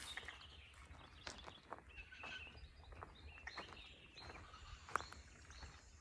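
Faint chirping of small birds, many short calls overlapping, with scattered clicks and one sharp click about five seconds in, over a steady low rumble.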